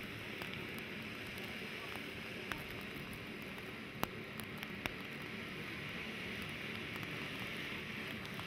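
Ground firework fountain (Triplex TXF566 'Rain') burning with a steady hiss as it sprays sparks, broken by three sharp cracks, the loudest about four seconds in.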